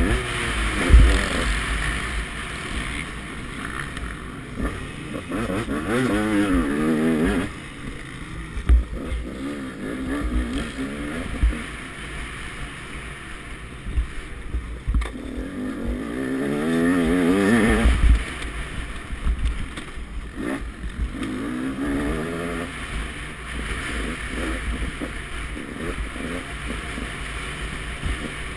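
KTM 200 XC-W two-stroke dirt bike engine revving hard under acceleration. Its pitch climbs in several long pulls and falls away sharply as the throttle is closed. Low thumps come through as the bike goes over bumps in the track.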